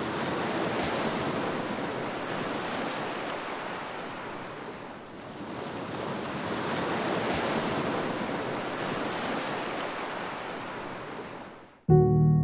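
Ocean surf washing in a steady rush that swells and eases, then cuts off abruptly near the end as piano music begins.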